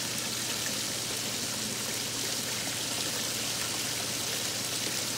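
Steady hiss of running water, with a faint steady low hum underneath.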